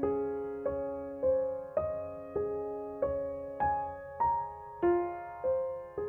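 Slow, calm piano music, a note struck about every half second and left to fade.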